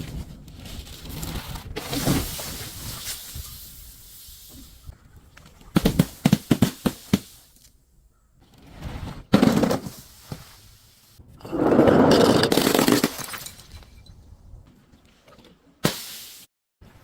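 Things being crushed and broken in several short separate takes: a rough crackling first, then a quick run of sharp cracks, then louder crunching bursts, the loudest a bit past the middle.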